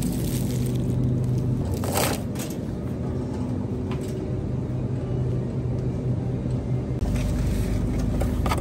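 Steady low rumble and hum of a vehicle, as heard from inside a moving car, with a brief knock about two seconds in.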